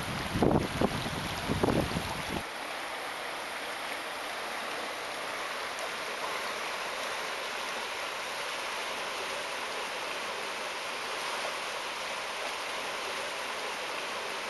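River water rushing steadily over a gravel bed and around fallen logs. In the first couple of seconds, low rumbling buffets on the microphone sit over the water.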